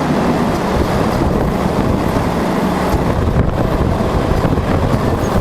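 A service truck's engine running steadily to power its crane while the scraper tire is moved aside.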